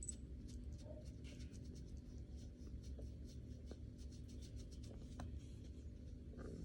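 Faint, quick rubbing and scratching strokes over a low steady hum.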